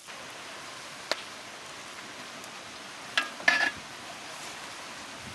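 A metal ladle knocking twice against a large metal cooking pot just after three seconds in, with a brief ring, and a single sharp click about a second in, over a faint steady hiss.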